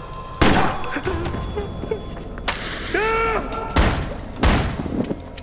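Four loud gunshots with echo in a large hall, the last two close together. A man gives a short yell between the second and third.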